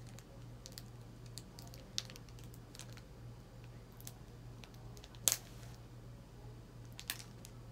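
Foil wrapper of a Pokémon card booster pack being worked at to tear it open: scattered faint crinkles and ticks, with a sharper crackle about five seconds in and another near the end, over a low steady hum.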